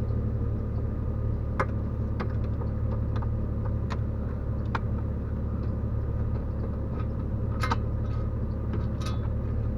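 Scattered light clicks and taps of dashboard trim and hand tools being handled, over a steady low engine-like drone.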